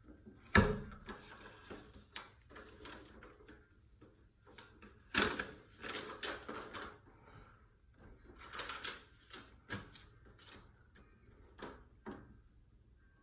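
Handling noises: a sharp knock about half a second in, then clusters of clicks, taps and rustling, with another loud knock about five seconds in.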